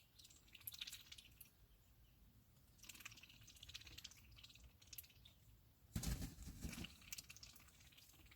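Faint, irregular clicking and crunching in clusters, typical of poultry pecking at sweetcorn kernels, with the busiest bout about six seconds in.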